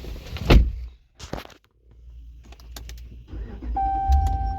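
Sounds in a pickup truck: a loud thump about half a second in, a few clicks and rattles, then near the end a steady high electronic warning tone, broken once, over a low engine rumble.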